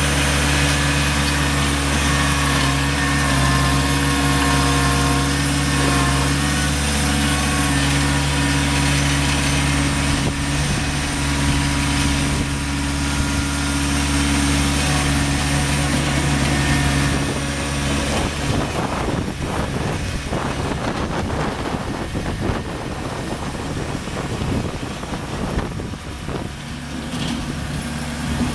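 Kubota B3200 compact tractor's three-cylinder diesel engine running steadily while it works a front loader in gravel. After about 18 seconds the even engine note gives way to a rougher, uneven noise as the tractor moves across the gravel.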